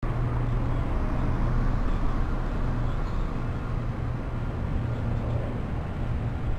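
Steady outdoor ambient rumble: a constant low hum under an even wash of noise, with no distinct events.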